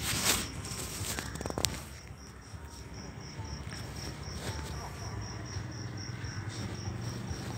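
A cricket chirping steadily, a high pulsing trill at about four chirps a second. A brief rustle right at the start and a sharp click about a second and a half in stand out above it.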